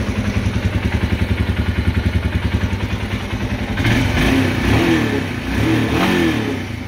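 Royal Enfield Himalayan 411's single-cylinder engine running at a fast, even idle, then revved in several quick throttle blips from about four seconds in. The engine is running with a newly fitted Fuelx Pro fuel-optimiser module.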